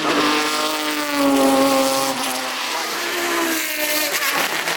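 BMW 3.0 CSL's straight-six engine running hard at high revs. Its note drops sharply at a gear change near the start, sinks slowly, then rises again after about three seconds.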